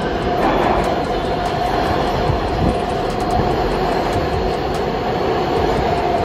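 A New York City Subway F train pulling into an underground station: a loud, steady rumble and rattle of the cars on the rails, with a steady whine running through it.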